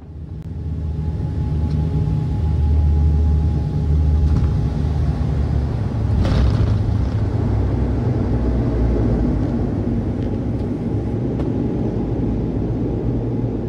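Dash 8-100 turboprop engines and propellers droning steadily, heard inside the passenger cabin: a loud, deep, even drone that swells up over the first couple of seconds.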